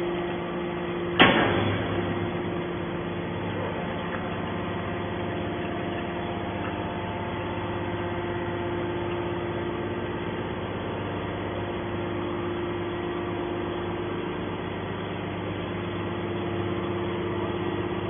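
A TCM hydraulic metal scrap baler ejecting a finished bale: a single loud clank about a second in, then the steady hum of the hydraulic pump unit as the ram slowly pushes the compressed block of scrap out of the chamber.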